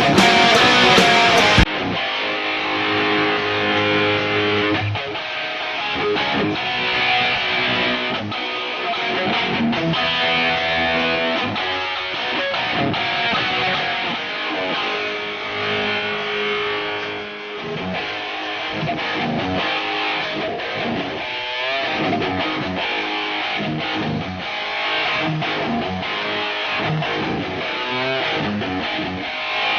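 Background guitar music with a steady beat and strummed electric guitar. Under two seconds in, a louder hiss stops abruptly and the music carries on alone.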